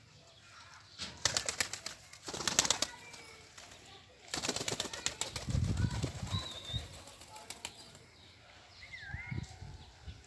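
Birds' wings flapping in three quick bursts of rapid clapping beats, with a couple of short high calls near the end.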